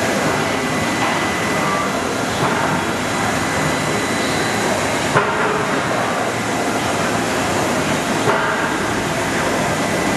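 Steady, loud machine-shop noise around a CNC machining center running a program dry, with a thin steady high tone and three short knocks, about 2.5, 5 and 8 seconds in.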